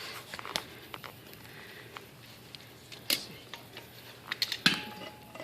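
Scattered sharp clicks and light knocks: one strong click about three seconds in and a quick cluster of them near the end, the loudest of all among them.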